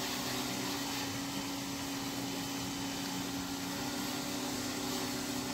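A motor running steadily with a constant hum over an even hiss.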